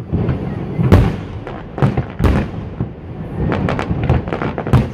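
Aerial fireworks shells bursting in quick succession: a string of sharp bangs, the loudest about a second in, others a little before and after two seconds and near the end, with crackling between.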